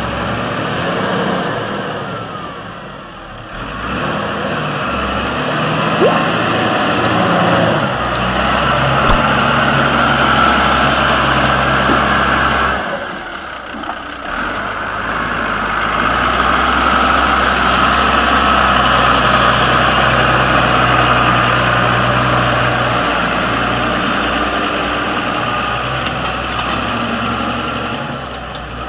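Farm tractor's diesel engine running under heavy load as it drags a cultivator through soft, wet ground. The sound dips briefly twice, about three seconds in and again near the middle.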